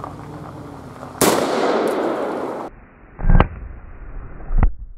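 Dan Wesson Supermag revolver in .357 Remington Maximum firing. One loud shot comes a little over a second in and trails off over about a second and a half. Then two duller, heavier bangs follow about a second and a half apart near the end.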